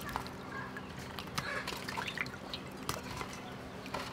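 Water dripping and small splashes as raw tiger shrimp are lifted and handled in a metal tray of water, with scattered light clicks.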